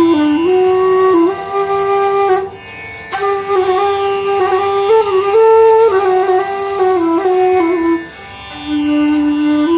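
Bansuri (bamboo flute) playing a slow melody of held, gliding notes in two phrases, with a break about two and a half seconds in and another near eight seconds, over a steady tampura drone from an app.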